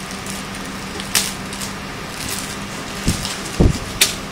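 Clear plastic wrapping around a laptop crinkling as it is handled and lifted, with a couple of dull thumps about three seconds in, over a steady low hum.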